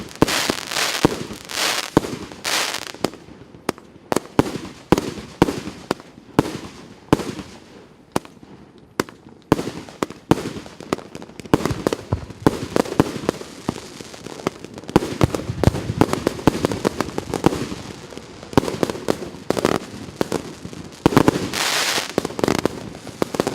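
Piroff 'Russkaya Zabava' multi-shot firework battery firing shot after shot: a quick irregular string of launch thuds and aerial bursts, with a sustained hissing spray about 21 seconds in.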